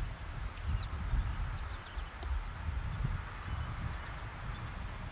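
Insects chirping outdoors: a high chirp repeated two or three times a second, with a few short falling chirps in between, over a low rumble of wind on the microphone.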